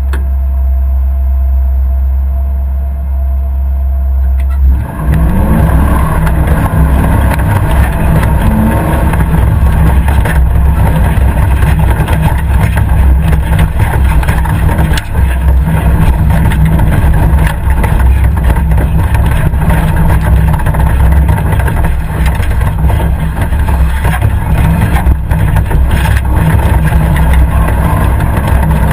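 Competition safari 4x4's engine running under load on a rough off-road course, with many short knocks and rattles over it. A steadier, lower running note at first becomes louder and rougher about five seconds in as the vehicle drives hard.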